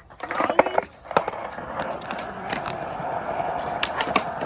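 Skateboard wheels rolling on pavement, a steady rolling noise that sets in about a second in, with a few sharp clacks from the board.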